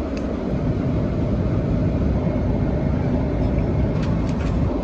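Steady airliner cabin noise in flight: an even, low rumble from the engines and airflow, with a few faint clicks about four seconds in.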